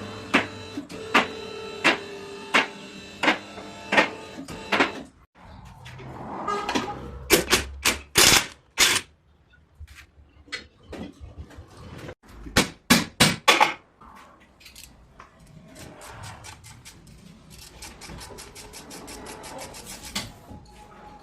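Workshop tool and metal sounds during car repair work. First a steady run of clicks, about two a second, over a faint hum. Then scattered sharp knocks, with clusters of loud strikes about a third of the way in and again past the middle.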